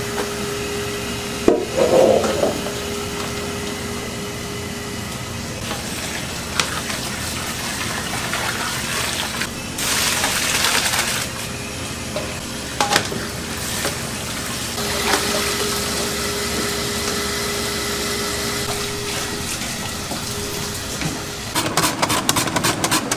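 Hot water and blanched mushrooms poured from a pot into a plastic colander, water splashing and draining, over a steady kitchen hum. Near the end, a carrot is pushed quickly back and forth over a mandoline slicer in a fast run of slicing strokes.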